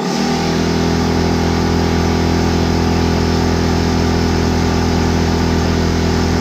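Air compressor kicking on suddenly and running steadily with a loud motor hum, as air is fed to seat a tubeless motorcycle tire's bead.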